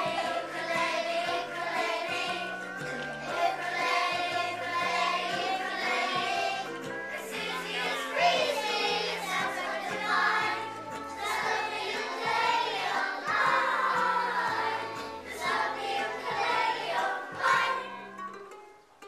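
A group of young children singing a song together, accompanied by ukuleles and a low bass line that moves in steady steps. The music fades out shortly before the end.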